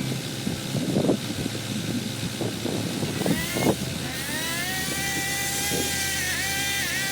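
A low engine running steadily with irregular knocks. About three and a half seconds in, a small high-speed saw motor revs up and runs at high pitch, dipping briefly twice near the end as if under load.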